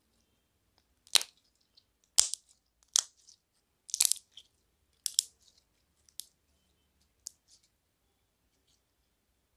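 Blue-green slime squeezed in the hand, giving about seven sharp, squishy pops and crackles roughly one a second, the last two fainter.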